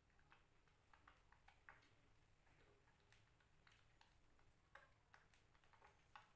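Faint, irregular wet clicks of a kitten suckling milk from a feeding bottle's nipple.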